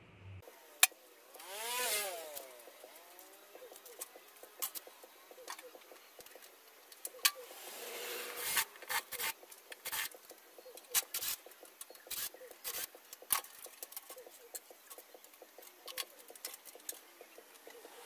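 Scattered clicks, taps and plastic rattles of hands pulling out the old wiring harness and parts of a microwave oven, with one sharp click just under a second in. A vehicle passes by about two seconds in, swelling and fading.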